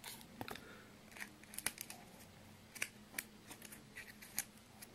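Scattered light clicks and plastic rustles of sleeved trading cards being handled and swapped, one card set down and the next picked up; a faint low hum underneath.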